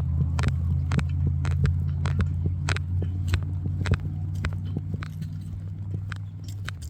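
Footsteps crunching on a trail, sharp crackling steps about two or three a second, over a low steady rumble that slowly fades.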